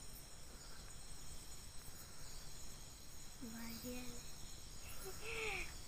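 Crickets chirping steadily in the night air, faint and high-pitched, with a couple of brief faint pitched calls about halfway through and near the end.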